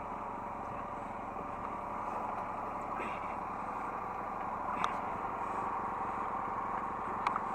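Hydraulic excavator's diesel engine running steadily, heard from the operator's cab, with a couple of short clicks or knocks about five seconds in and near the end.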